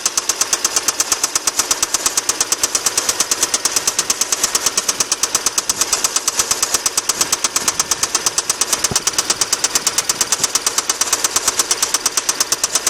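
Engine running with a steady, rapid metallic ticking, about ten ticks a second. It is an extraneous noise that the owner thinks is coming from the starter.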